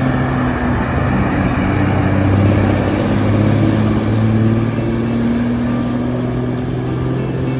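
A bus's diesel engine running close by, swelling to its loudest about two and a half seconds in and then easing off, as of a bus moving past.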